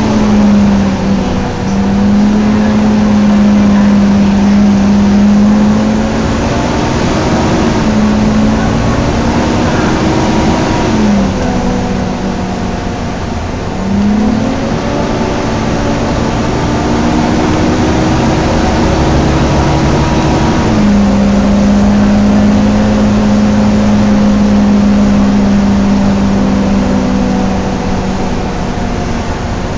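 Volvo B9TL bus's engine cooling fan whining like a vacuum cleaner, heard on board over the engine and road noise. The whine holds steady for long stretches, then glides up in pitch and drops back a few times as engine speed changes.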